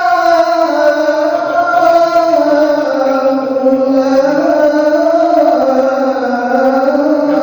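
A male qari reciting Qur'anic verses in the melodic tilawah style, sustaining one long ornamented phrase without a break, its pitch wavering and slowly drifting downward.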